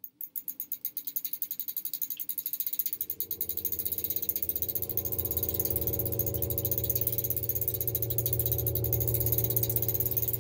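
Bicycle rear hub freewheel ticking as the rear wheel spins: a rapid run of clicks that starts suddenly and gets faster over the first few seconds. A low steady hum joins about three seconds in.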